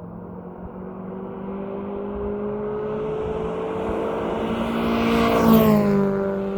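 A car engine approaching and passing close by, getting steadily louder and then dropping in pitch as it goes past about five and a half seconds in; a second pass begins near the end.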